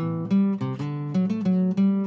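Music played on acoustic guitar: a run of plucked notes, each starting sharply and ringing, at a steady even pace.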